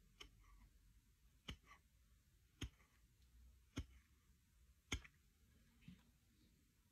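Steel nail knocking against a steel knife blade: four sharp metallic clicks about a second apart, with a few fainter ticks between.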